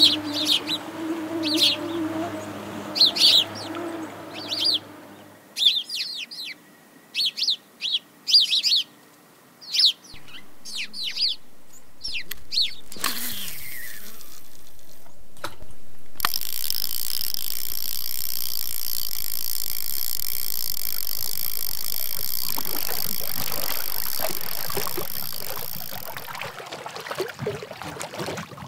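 A mosquito whine fades out over the first five seconds while a small bird gives a dozen short, high chirps over about twelve seconds. After a falling sweep, a steady high-pitched hiss with ringing tones holds for about ten seconds, then fades into the splash of canoe paddles in calm water near the end.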